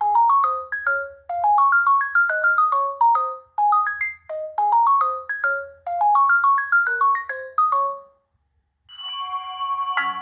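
Preloaded ringtone on an LG Fortune phone: a melody of short, quickly fading notes in rising runs, repeated phrase after phrase, which stops about eight seconds in. After a brief silence, a different, denser ringtone starts near the end.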